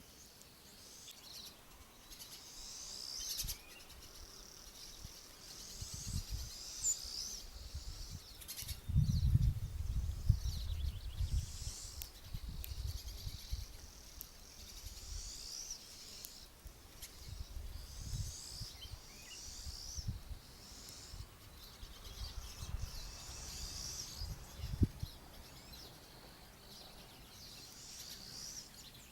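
Small songbirds singing in short, repeated high phrases over and over. Irregular low rumbles come and go, loudest about nine seconds in.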